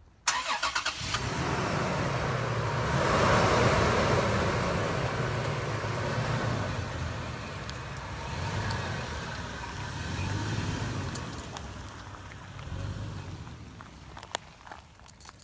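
A 2017 Toyota 4Runner's V6 engine starting and running. It swells about three seconds in, then fades gradually toward the end.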